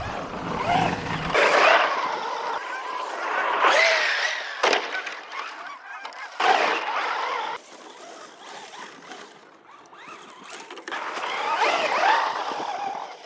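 Traxxas Ford Raptor 1/10 RC truck running on a dirt track: its motor whines in short rising and falling glides over the rush of tyres on dirt, in several short runs that start and stop abruptly.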